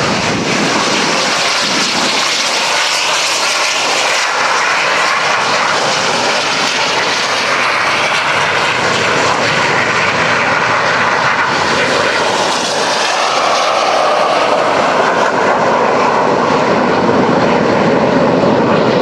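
Jet engine noise from several Red Arrows BAE Hawk T1 jets with Rolls-Royce Turbomeca Adour turbofans taking off in formation: loud and steady, growing a little louder near the end.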